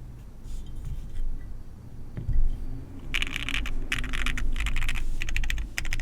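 Typing on a mechanical keyboard with lubed Hoshizora linear switches on a POM plate: a few scattered soft key presses, then a fast run of keystrokes from about three seconds in.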